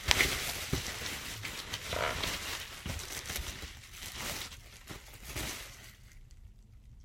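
Packaging being handled while a parcel is unwrapped: crinkling and rustling with scattered clicks and taps, dying away near the end.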